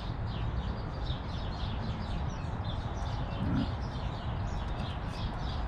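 Small birds chirping over and over over a steady outdoor background noise, with one short low grunt-like sound about three and a half seconds in.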